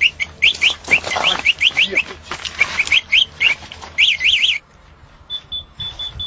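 Bird chirping: a quick, uneven run of short rising chirps that stops abruptly about four and a half seconds in. Near the end a faint, high, evenly pulsed beeping starts.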